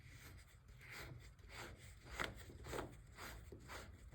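Faint rubbing and scraping as a garden hose's threaded coupling is unscrewed from a water heater's drain valve, in a string of short strokes.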